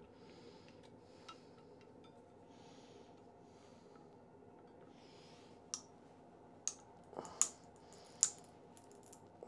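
A handful of sharp, separate cracks and clicks in the second half as a force-gauge probe is pressed into a 1-inch PLA cube with 20% rectilinear infill: the thin printed infill cracking under the load. A few faint soft rushes of noise come before them.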